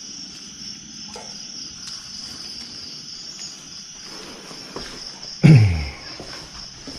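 Crickets and other night insects chirping in a steady high drone. About five and a half seconds in, a short, loud thump with a quickly falling pitch.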